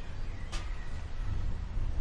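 Low rumble of distant thunder from an approaching thunderstorm, with a single short sharp click about half a second in.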